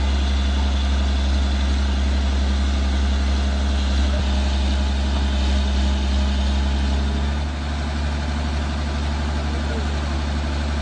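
Diesel engine of a Tata Hitachi EX110 crawler excavator running steadily with a deep hum while its boom and bucket push against the ground; the engine note shifts slightly about seven and a half seconds in.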